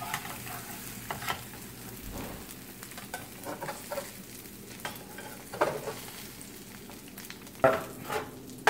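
Egg omelette frying gently in oil in a frying pan, a soft steady sizzle. A spatula and a fork scrape and tap against the pan now and then, most loudly near the end.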